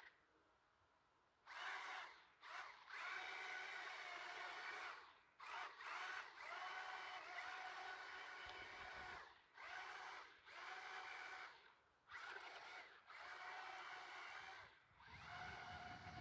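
Megalodon Storm amphibious RC stunt car's electric motors whining as it drives through shallow water. The whine comes in repeated bursts of one to three seconds with short gaps as the throttle is worked, starting about a second and a half in.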